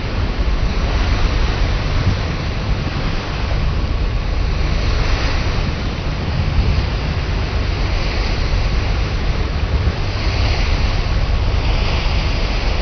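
Wind rushing across the microphone over the wash of sea water, a steady noisy rumble with no engine note standing out.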